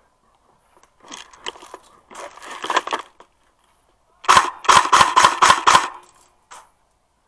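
Airsoft rifle firing a rapid string of about eight shots, roughly five a second, after a couple of seconds of irregular knocks and rustling.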